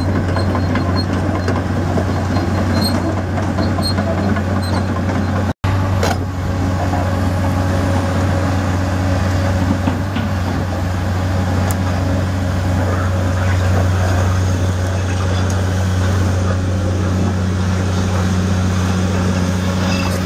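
Diesel engine of a 1998 Hyundai Robex 290LC-3 long-reach excavator running steadily with a low, even drone. The sound cuts out for an instant about five and a half seconds in.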